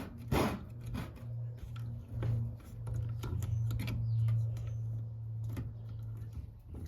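Small clicks and taps of plastic tubing, clips and valve parts being handled, over a steady low hum that swells through the middle and fades near the end.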